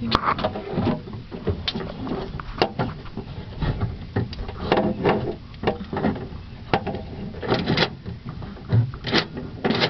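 Irregular clicks and clunks of hands working inside a 1998 Ford Explorer's door on the door lock mechanism, plastic and metal parts knocking as they are pushed and snapped.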